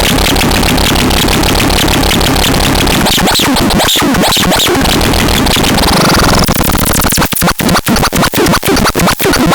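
Loud, dense electronic music with scratch-like noisy textures and a rising sweep; about seven seconds in it breaks into rapid stuttering pulses, about three to four a second.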